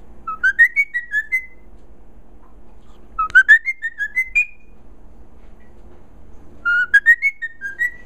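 Cockatiel whistling, singing the same short phrase three times: each phrase about a second long, starting low, rising and then warbling up and down, with a few sharp clicks in it.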